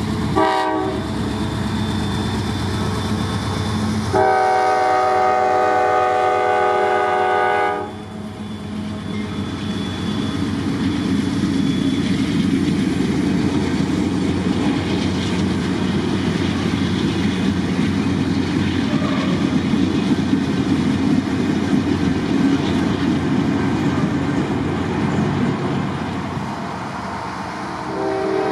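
A diesel locomotive's K5LA five-chime air horn gives a short toot, then a long blast lasting about three and a half seconds. After that comes the steady rumble and wheel clatter of the Schnabel railcar's many trucks rolling past on the rails. Another horn blast starts right at the end.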